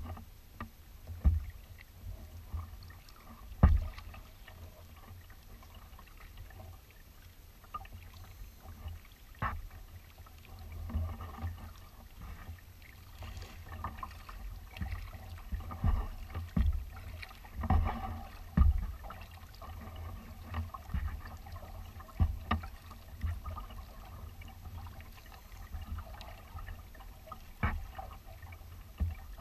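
Kayak being paddled across choppy water: irregular splashes and slaps of water against the hull every second or two, over a steady low rumble.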